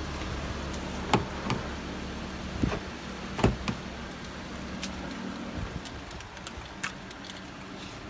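Perodua Alza's engine idling after a remote auto start, a steady low hum that cuts off about five and a half seconds in. Over it, the driver's door latch clicks and the door knocks open, with several sharp clicks between one and four seconds in.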